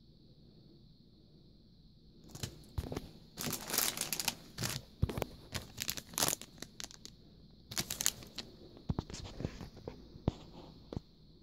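Clear plastic cellophane craft packets crinkling and rustling as they are handled and turned over, in irregular bursts starting about two seconds in.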